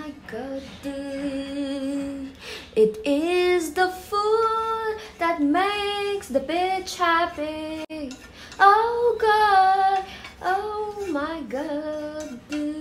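A woman singing a tune in short phrases, with no clear instrumental backing.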